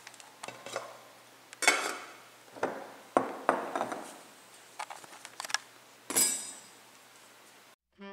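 A metal serving spatula scraping and knocking against a stainless steel saucepan and a ceramic plate while rice is dished out, in a series of short, separate clinks and scrapes. The sound stops abruptly near the end.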